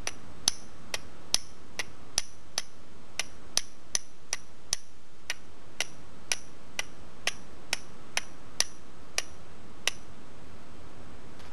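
A steel striker glancing down the edge of a piece of flint to throw sparks onto char cloth: about twenty sharp, ringing metallic clicks at roughly two a second, stopping about ten seconds in.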